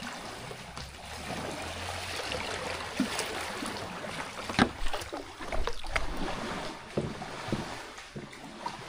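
Kayak paddling: paddle blades dipping and splashing in the water, with sharp knocks and splashes scattered through, over a steady rushing hiss.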